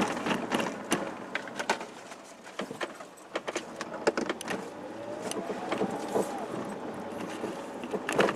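Car driving, heard from inside the cabin: steady road noise with frequent small clicks, knocks and rattles as it rolls toward and over a railroad level crossing.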